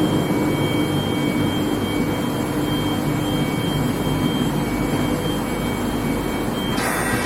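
Long-steel-bar induction hardening and tempering line running: a steady industrial drone with a constant high-pitched whine. About seven seconds in there is a short burst of hissing noise.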